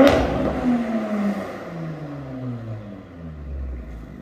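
Audi RS5's twin-turbo V6 through an AWE Tuning Track Edition non-resonated cat-back exhaust, revved in comfort mode. The revs peak at the start with a sharp crack, then fall away, with a smaller blip about a second in, and settle back toward idle.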